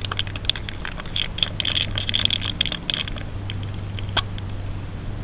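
Aerosol spray paint can being shaken, its mixing ball rattling in quick clicks that stop about three seconds in, with one more click near the end. A low steady hum runs behind.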